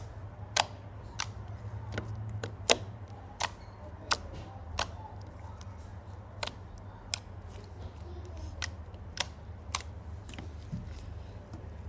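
Glossy slime being handled, giving off a string of sharp clicks and pops, a little more than one a second, over a low steady hum.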